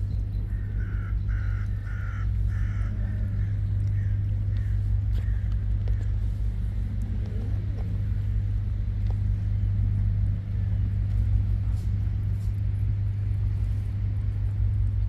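A steady low motor drone. About a second in comes a quick run of about six short calls.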